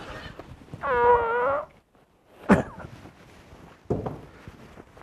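A person's short, high-pitched moan or whine with a wavering pitch, lasting under a second, followed by a sharp click and, a little later, a soft thud.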